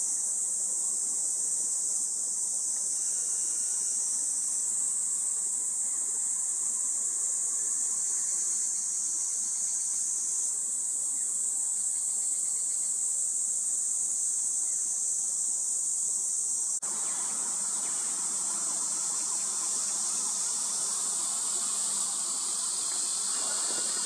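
Steady, high-pitched drone of summer insects, unbroken throughout, with a slight change in tone about two-thirds of the way through.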